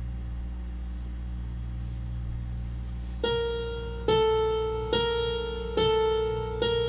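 Song intro on electric piano: a low sustained chord holds steady, then about three seconds in the same keyboard note is struck five times, a little under a second apart, each one fading before the next.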